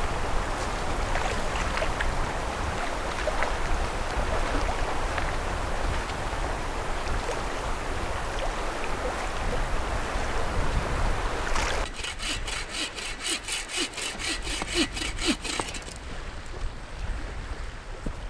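Steady wind and lapping lake water, then about twelve seconds in, a hand saw cutting wood with quick, even strokes for about four seconds, followed by quieter rubbing and handling of wood.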